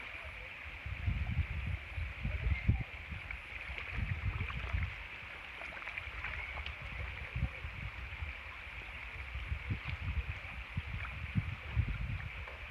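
Outdoor ambience beside a pond: an uneven low rumble that swells and falls in gusts, under a steady high-pitched drone.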